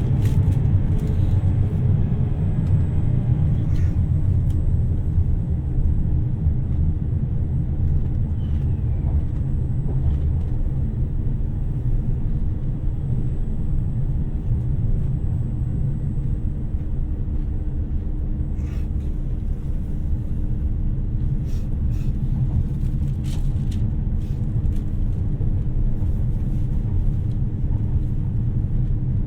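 Inside a 2700 series diesel limited express train on the move: a steady low rumble with a constant hum and scattered light clicks.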